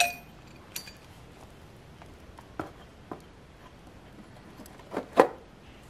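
Scattered light clicks and knocks from handling a small 49cc petrol engine as it is fitted to a water pump head, with the loudest double knock about five seconds in. The engine is not running.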